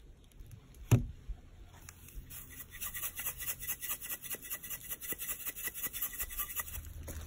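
A raw T-bone steak slaps down onto a wooden board about a second in. Then a stainless steel shaker is shaken in quick, even strokes, rattling seasoning out over the meat.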